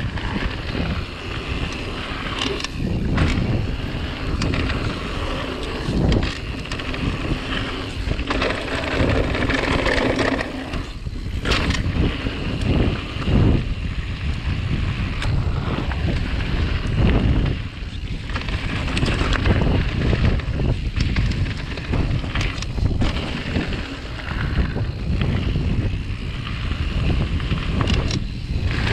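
Mountain bike descending a loose gravel and slate trail: tyres crunching and the bike rattling over stones, with wind buffeting the microphone throughout.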